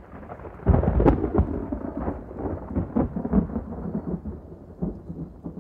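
Thunder rumbling, loudest about a second in, then going on as a lower, uneven rumble.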